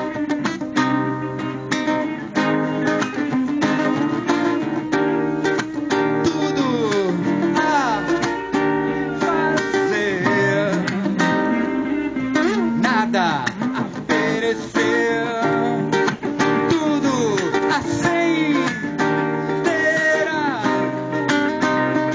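Live instrumental passage: an acoustic guitar strumming chords while an electric guitar plays lead lines whose notes bend and slide up and down in pitch.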